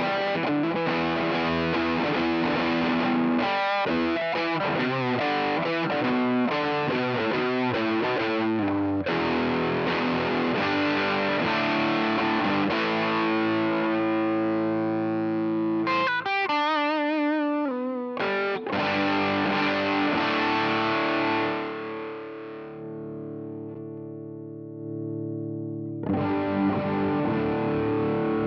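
Fender Stratocaster electric guitar played through an SVI Sound Fuzz Genetic fuzz pedal, with fuzzy distorted chords and riffs. A quick lead run comes about sixteen seconds in, then a chord is left to ring and fade before a new chord is struck near the end.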